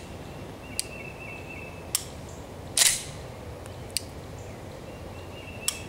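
Glock pistol dry-fired on dummy rounds: sharp single clicks of the striker falling and the trigger resetting, four in all. About three seconds in, a louder, longer clatter of the slide being racked to eject the dead round and chamber the next.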